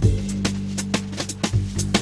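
Background music with a steady bass line and drum hits.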